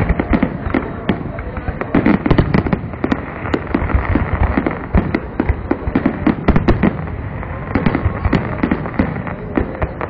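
Aerial firework shells bursting in quick succession: many bangs and crackles overlapping with no pause.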